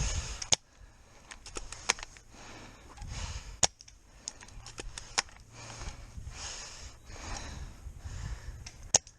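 Airsoft guns firing single shots: sharp, irregularly spaced cracks, three of them much louder than the rest, with softer noise between them.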